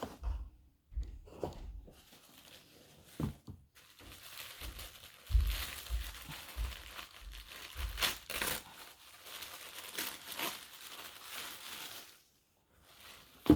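A box being opened and its paper wrapping handled: irregular rustling and crinkling of paper, with a few soft bumps early on. A sharp knock near the end.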